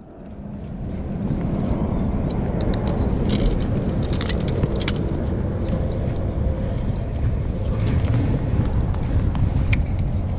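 Wind rumbling over the microphone of a body-worn camera, a dense low noise that rises in over the first couple of seconds. A few light clicks come through it as the fishing rod and tackle are handled.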